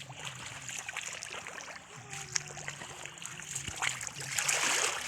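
Water trickling and splashing as someone works by hand in shallow water, with scattered small splashes and a louder, longer splash about four seconds in.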